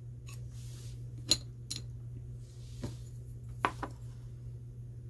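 A handful of sharp clicks and knocks from a plastic paint jar and its stirring stick being handled and set down on a countertop: a loud tap a little over a second in, then a few more, two of them close together later on. A low steady hum runs underneath.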